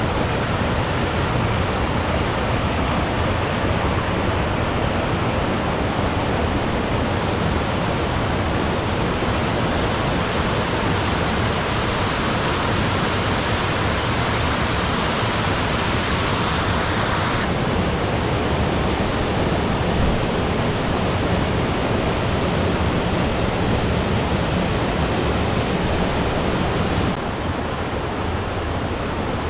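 Waterfall: a steady, loud rush of falling water. The hiss turns brighter from about nine seconds in until about seventeen seconds, and the whole sound drops a little near the end.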